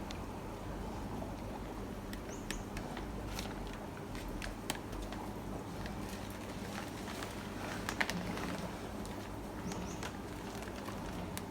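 Handling of plastic fish bags: scattered light clicks and taps over a steady low hum.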